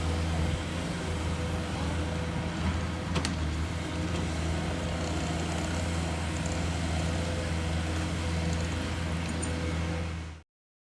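An engine running steadily at an unchanging pitch, with one sharp click about three seconds in.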